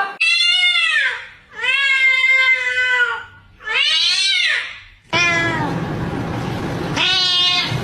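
A cat meowing: three long, drawn-out meows that rise and fall in pitch, then, over a noisier background, a falling meow and a shorter one near the end.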